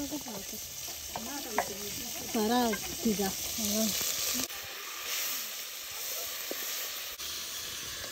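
Wooden spoon stirring and scooping wet chopped greens in a steel basin, over a steady sizzling hiss. A few short voice-like calls sound in the background between about one and four seconds in.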